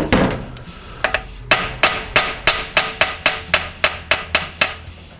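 A hammer striking metal on a transmission being torn down: one knock at the start, then from about a second in a quick, even run of about a dozen blows, roughly three a second, each with a slight ring.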